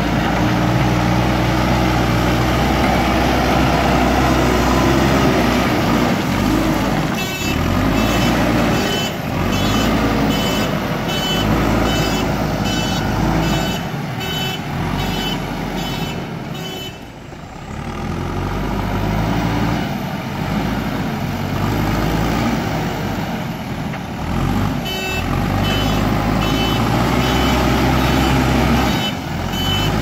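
JCB 3DX backhoe loader's diesel engine running as it works the front bucket, its sound rising and falling. The machine's reversing alarm beeps at a steady rate in two stretches, from about a quarter of the way in and again near the end.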